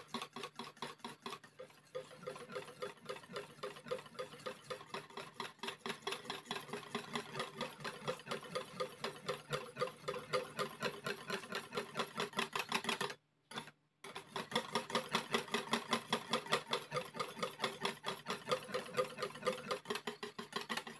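Wire whisk beating thin crêpe batter in a bowl, a fast, even run of clicking strokes at several a second, with a break of under a second about 13 seconds in.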